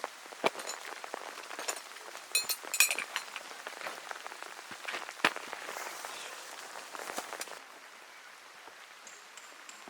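Rain pattering steadily, with scattered knocks and a quick run of metallic clinks about two and a half seconds in. The rain eases a little near the end.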